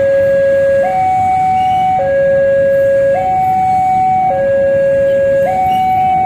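Railway level-crossing warning alarm sounding its electronic two-tone signal, alternating evenly between a lower and a higher tone about once a second, warning road traffic that a train is at the crossing.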